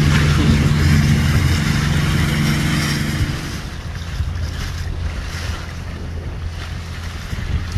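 Boat motor running steadily underway, with water rushing past the hull and wind on the microphone. A louder engine hum drops away about three and a half seconds in.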